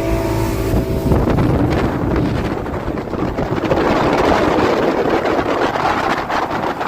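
Motorboat running underway, with wind buffeting the microphone. A steady engine hum gives way about a second in to a loud, even rushing noise of wind and water.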